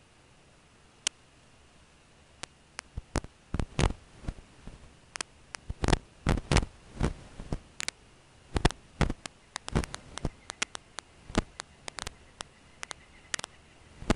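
Irregular sharp clicks and crackles. A few come early, then from about three seconds in they turn dense and uneven, several a second, over a faint steady high whine.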